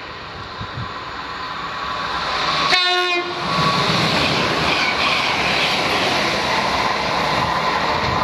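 London Midland Class 350 Desiro electric multiple unit approaching at speed, sounding one short horn blast about three seconds in, then running through with a loud rush of wheels on rail.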